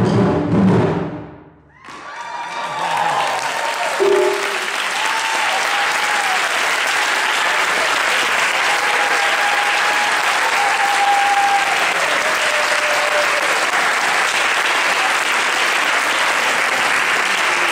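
Taiko drums strike their last loud beats and stop abruptly, then after a moment's pause an audience breaks into sustained applause with scattered cheering voices.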